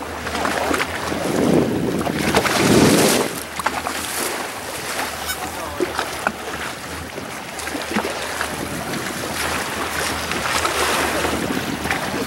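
Wind on the microphone and sea water splashing and lapping beside a boat, over a steady low hum. The loudest gust or wash comes about two to three seconds in.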